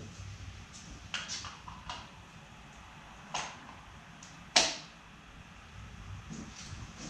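Plastic clicks and knocks from fitting coloured caps onto LED lamps: a few light clicks, a knock about three seconds in, then one sharp snap about four and a half seconds in.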